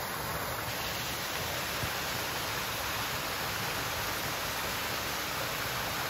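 Small waterfall cascading over rocks into a stream: a steady rush of falling water.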